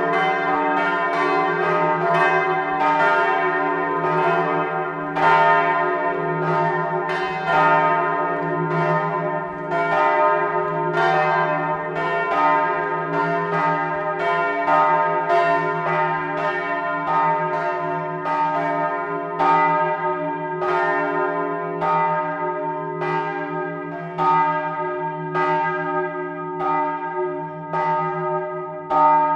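Several swinging bronze church bells ringing together in a peal, their strikes overlapping over a steady low hum. The strikes come thick and fast at first and grow sparser in the second half.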